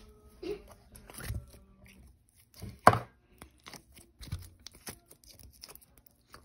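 Glossy clear slime being pulled from its jar and stretched and squeezed by hand, making a string of sticky clicks and small pops, with one louder pop about three seconds in.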